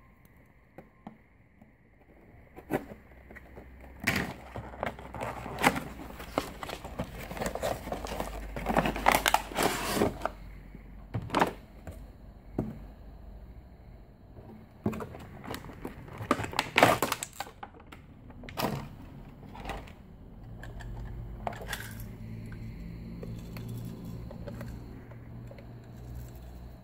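Unboxing handling noise: plastic packaging crinkles and rustles against a cardboard box, with scattered clicks and knocks. A low steady hum comes in for the last several seconds.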